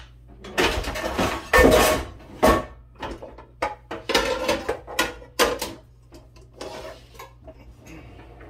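Metal pots and pans clattering and clanking as a frying pan is pulled out from among other cookware, with the loudest clash just under two seconds in and a few softer knocks after.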